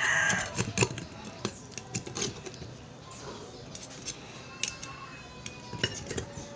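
Knife blade clicking, knocking and scraping against a large clam shell as the meat is cut free, in irregular strokes. A rooster's crow trails off just after the start.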